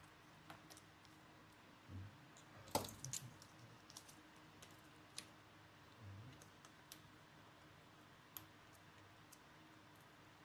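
Scattered small clicks and light taps of tools and parts being handled during laptop disassembly, the sharpest click about three seconds in, with soft low thuds near two and six seconds.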